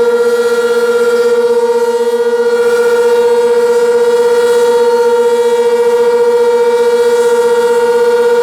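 Sentry 16V1T-B outdoor warning siren sounding its steady alert signal: one loud, continuous tone held at a constant pitch.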